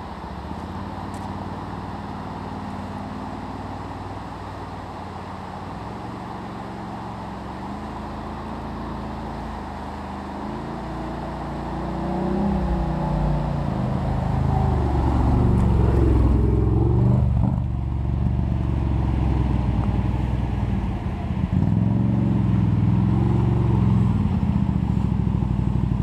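Can-Am Outlander 800 ATV with an HMF Swamp XL slip-on exhaust approaching, faint at first over a steady rush of creek water, then growing loud from about halfway as it revs across the wooden bridge and passes close by, easing briefly and picking up again near the end.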